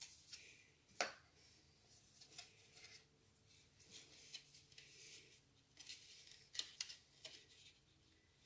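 Faint handling noise from unboxing an iPhone 11: scattered light clicks and brief rustles of the box and packaging, with one sharper click about a second in and a cluster of clicks in the middle.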